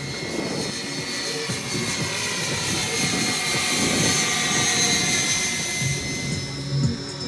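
Radio-controlled scale model of an SA 315B Lama helicopter in flight: a steady high whine over the rush of its rotors, slightly louder midway through.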